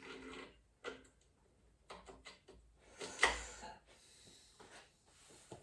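Metal parts clinking and knocking on the bare engine block as a main bearing cap is fitted onto a Chevy 350 small-block, with one louder clunk about three seconds in.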